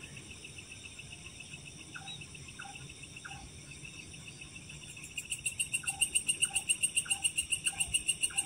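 Night insects chirping in a steady high chorus. About five seconds in, a louder pulsing trill sets in at several pulses a second. Faint short calls repeat every half second or so underneath.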